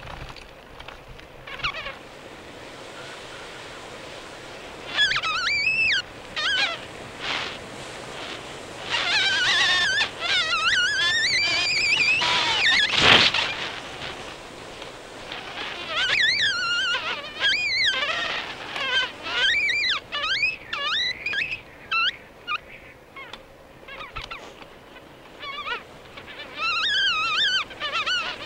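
Bicycle brakes squealing in repeated wavering high-pitched bursts, some over a second long, over tyres rolling on a forest path. There is one sharp knock about halfway through.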